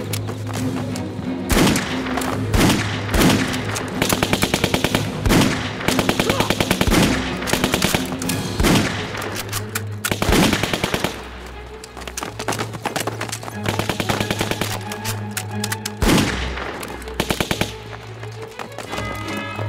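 Battle gunfire: single rifle shots mixed with several rapid bursts of machine-gun fire, over a tense background music score.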